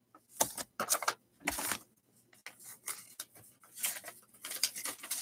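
Paper mailer envelope being torn open and handled: a run of short crinkling, tearing rustles, the loudest in the first two seconds, then lighter rustling.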